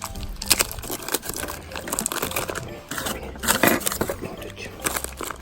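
Paper rustling and crinkling as a sheet of paper is handled, with irregular small clicks and knocks.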